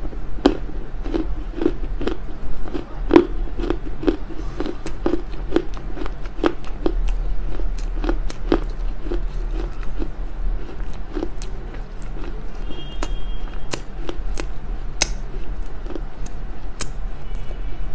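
Close-miked chewing and biting of smoked Chinese loess clay: crisp crunches and clicks, two or three a second, with soft thuds of the jaw.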